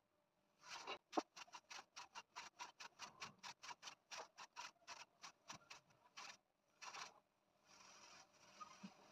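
Quick, uneven run of small clicks and taps as dry cloves are handled and pushed into lime halves on a steel plate, several a second, stopping about seven seconds in; a faint steady hiss follows.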